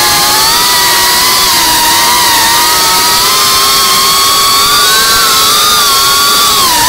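FPV quadcopter's brushless motors and propellers whining in flight, the pitch wavering up and down with the throttle and dipping near the end.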